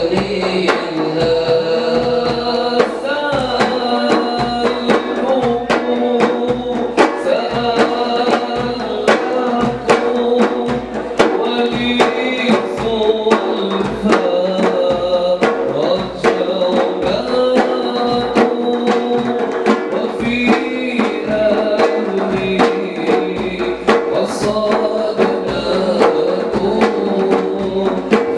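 Selawat: a male solo voice singing devotional verses through a microphone over a group of frame drums beating a steady rhythm.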